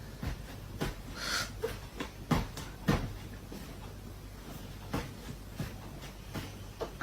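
Scattered light knocks and taps over a low steady hum, with a short hiss about a second in.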